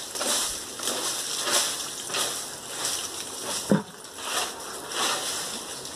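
Water splashing and sloshing in a plastic bucket as noni fruits are rubbed and washed by hand, in repeated short swells about every half second. There is one sharper knock a little over halfway through.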